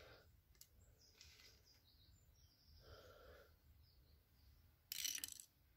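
Near silence with faint handling sounds. About five seconds in there is one short, loud burst of noise lasting about a third of a second.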